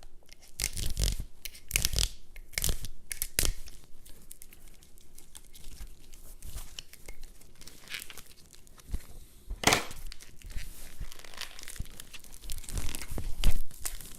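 Plastic wrapping being torn and crinkled off the brace kit's rods in irregular rustling bursts, with one sharper rip about ten seconds in.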